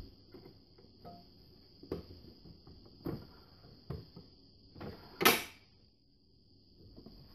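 Refrigerator compartment being handled: several light plastic knocks, then a louder clunk about five seconds in, like a fridge door or compartment lid shutting.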